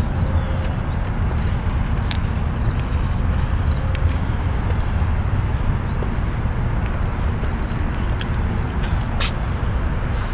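A steady high-pitched insect chorus drones without a break, with a fainter insect chirping in a repeating pattern just below it. Under it all runs a steady low outdoor rumble, the loudest part of the sound.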